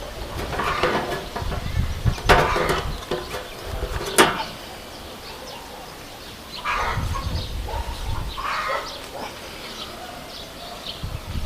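Scattered bird calls, a few short separate calls, over a low rumbling background, with a sharp click about four seconds in.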